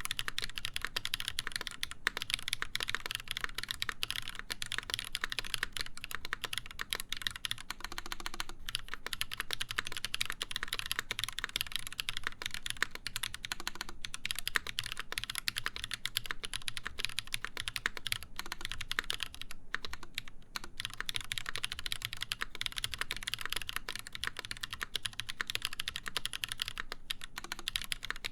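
Steady, fast typing on an Exclusive E8.5 mechanical keyboard with lubed Holy Panda tactile switches, a full brass plate and GMK keycaps: a dense run of key clacks, with brief pauses about 8 and 20 seconds in.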